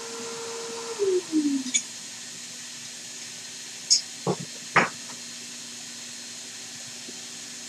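2.2 kW CNC router spindle running with a steady whine over a high hiss; about a second in the whine drops smoothly in pitch as the spindle slows to a lower speed, then holds steady. A few short, sharp knocks come about four to five seconds in.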